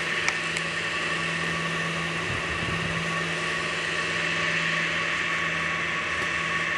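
Two small cooling fans on an electronic speed controller's heatsink running, a steady whir with a steady low hum under it. A couple of faint clicks come about half a second in.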